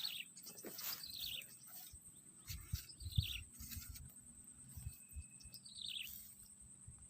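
A bird calling: a quick run of notes falling in pitch, repeated about four times, over a steady high whine. A few low bumps come in the middle.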